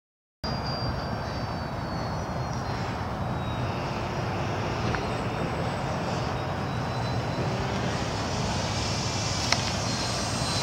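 Electric RC foam airplane's motor and propeller whining as it flies overhead: a high whine that shifts in pitch as the plane passes, over a steady rushing noise. One sharp click comes near the end.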